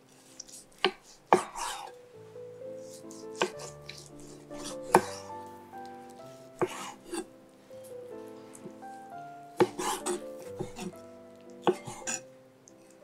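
Chef's knife cutting a cooked chicken breast into pieces on an end-grain wooden cutting board: about ten sharp knocks of the blade on the board, mostly in pairs, with soft background music under them.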